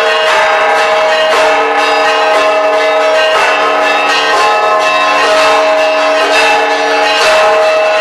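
Church bells of the Church of the Holy Sepulchre pealing, rung by hand with ropes. Several bells are struck in turn, a fresh stroke about once a second, their notes ringing on and overlapping.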